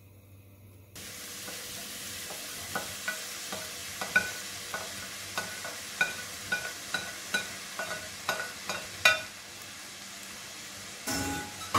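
Chopped vegetables hitting hot melted butter in a stainless steel frying pan, starting to sizzle suddenly about a second in and then frying with a steady sizzle. Over it comes a run of sharp knocks, about two a second, from a wooden spoon scraping the vegetables off a plate and stirring them against the pan.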